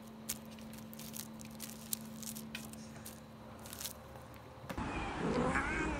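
Light crinkling and tapping as a kitten paws at a hanging plastic bag and cable, with scattered sharp clicks over a steady low hum. Near the end it gives way suddenly to louder high, gliding kitten mews.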